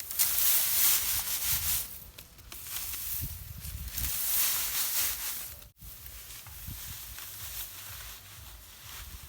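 Dry rice plants rustling as they are handled during harvest, in uneven swishing bursts. The sound breaks off abruptly for an instant a little past halfway.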